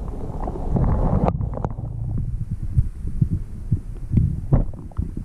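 Muffled sound from a camera held under the sea surface: irregular low thumps and rumble of water moving against its waterproof housing. A hiss in the first second cuts off suddenly, and a few small clicks come near the end.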